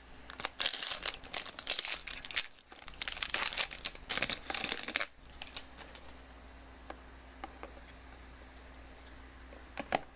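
Cellophane wrapping crinkling and tearing as it is pulled off a box of trading cards, for about five seconds. Then a few faint clicks of the card stack being handled.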